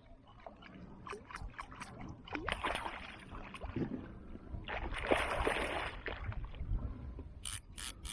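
Water splashing and sloshing at the side of a fishing kayak in two bursts, with a quick row of sharp clicks early on and a few louder clicks near the end.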